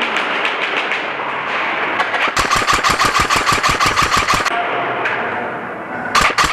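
Airsoft electric gun firing a rapid full-auto burst of about two seconds, roughly ten shots a second. Fainter scattered shots come before it, and another short burst starts near the end.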